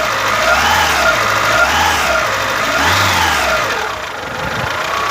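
Daewoo Sens car engine running, its pitch rising and falling about three times as it is revved up and let back down, then settling.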